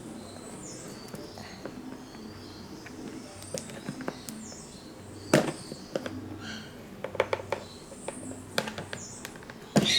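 Hands forcing open a sealed hard-drive retail box: scattered sharp clicks and cracks of cardboard and plastic packaging under strain, with one loud snap about halfway and a quick run of cracks near the end.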